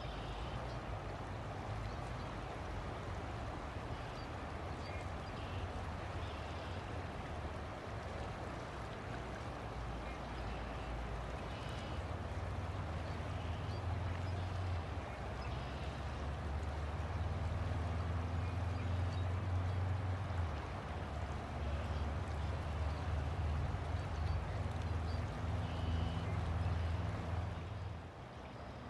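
River water flowing in a steady rush, with a low rumble underneath that grows louder over the second half and drops away near the end.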